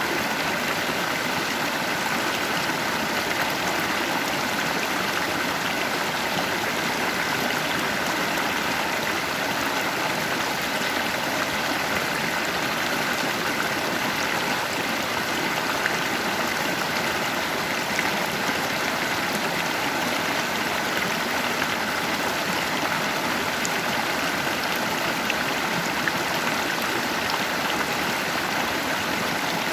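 Stream of water flowing over rocks in a natural current, a steady unbroken rush with no pauses.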